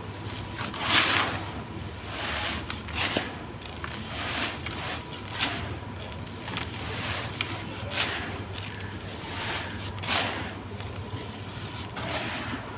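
Dry sand-cement blocks being crushed and crumbled, a series of gritty crunches roughly once a second with sharp crackling clicks, the loudest about a second in.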